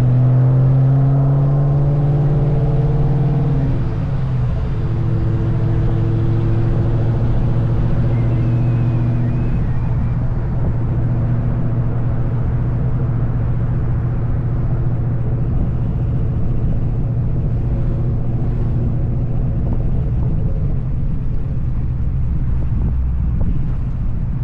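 2003 Mustang SVT Cobra's supercharged 4.6-litre V8 running through an SLP Loudmouth exhaust, a steady low exhaust drone while driving. The engine note drops about four seconds in and then holds steady.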